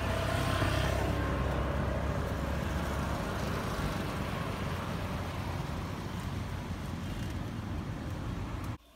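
Steady outdoor street background of road traffic rumble, with no clear sound from the cat. It cuts off suddenly near the end.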